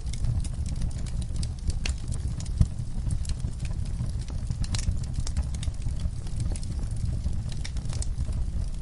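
Wood fire crackling, with irregular sharp pops over a low, steady rumble of the flames; one louder pop about two and a half seconds in.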